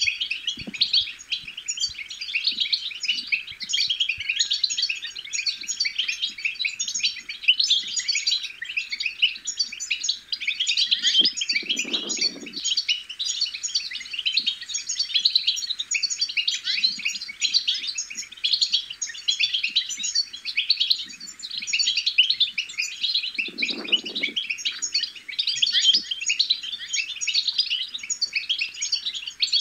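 European goldfinch twittering: a dense, unbroken run of quick, high chirps and trills. A brief low thud comes twice, about twelve seconds apart.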